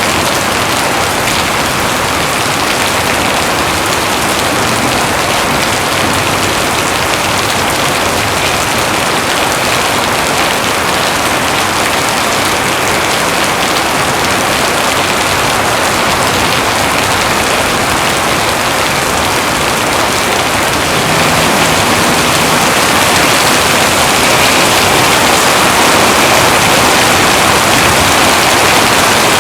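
Heavy rain pouring steadily as a dense, even hiss, growing a little louder about two-thirds of the way through.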